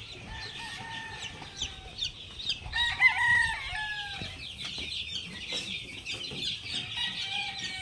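A pen of young chickens peeping and chirping over and over, short high chirps throughout. Two longer, drawn-out chicken calls, each lasting over a second, come near the start and again about three seconds in.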